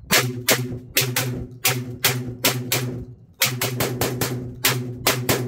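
Tokarev TT12 semi-automatic 12-gauge shotgun fired in rapid succession from a long magazine, about three shots a second. There is a brief pause about three seconds in, then the rapid shots resume.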